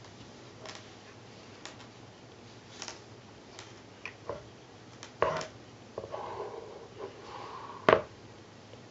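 A cat batting at a string toy on a tile floor: scattered light taps and scrapes of paws and claws, with a sharper knock near the end.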